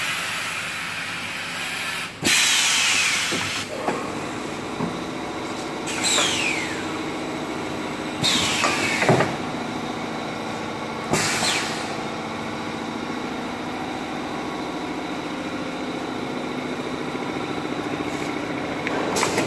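Automatic multi-roll toilet paper packaging machine running with a steady mechanical hum. Four times in the first twelve seconds it lets off loud bursts of compressed-air hiss from its pneumatic cylinders, each with a falling pitch.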